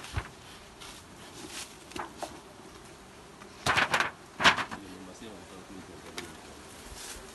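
Bee smoker puffing into an opened beehive: a few short breathy puffs close together about halfway through.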